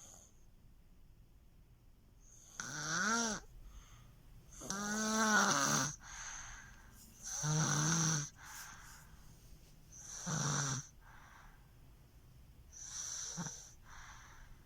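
Baby snoring loudly: five snores about every two and a half seconds, several with a pitched, wavering tone, with softer breaths between them.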